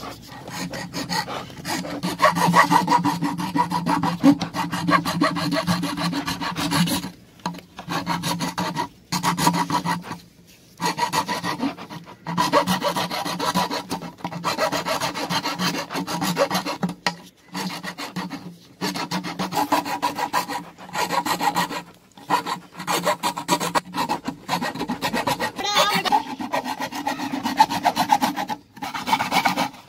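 A thin cord sawn rapidly back and forth around the neck of a plastic water can, rasping as its friction cuts through the plastic. The strokes come in bouts of a few seconds, broken by short pauses.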